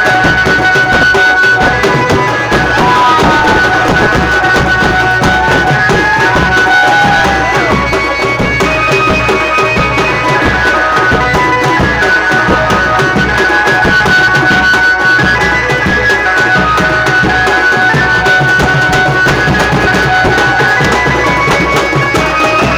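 Loud band-party dance music: drums keep a steady, driving rhythm under sustained melody notes, with a few bending notes about three to seven seconds in.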